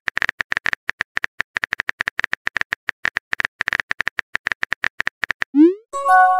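Keyboard tap clicks of a text message being typed on a phone screen, quick and irregular. Near the end comes a short rising swoop as the message is sent, then a brief chime of a few steady tones.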